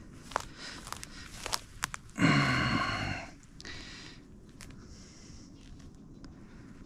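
Footsteps and rustling in dry grass with a few sharp crackles as a shot turtle dove is picked up, with one loud, short voice-like sound about two seconds in, then quieter rustling.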